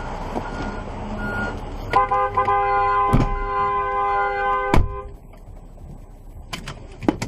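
Road and engine noise inside a slowing vehicle, then a vehicle horn sounds steadily for about three seconds from about two seconds in, with two sharp knocks during it. After the horn stops the sound drops to quieter cabin noise with a few clicks near the end.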